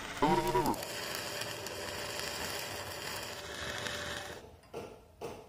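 Electric arc welding on a steel hinge: the arc's steady hiss runs, then stops about four and a half seconds in, followed by a few short separate sounds. A brief pitched vocal sound is heard just after the start.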